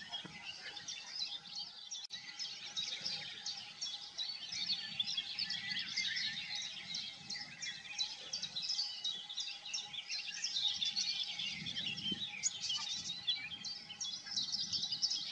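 Many small birds chirping and singing at once, a dense chorus of quick high chirps.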